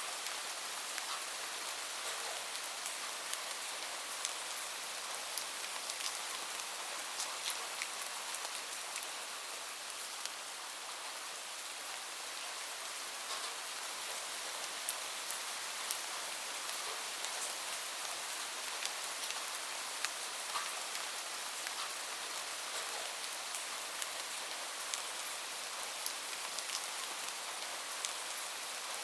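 Steady rain falling, a continuous hiss with many distinct drops pattering and ticking on a surface.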